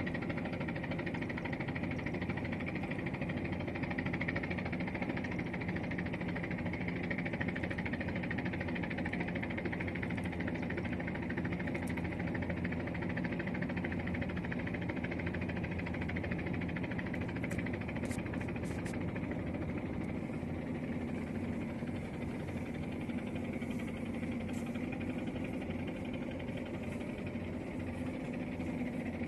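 An engine running steadily, a constant low drone that does not change.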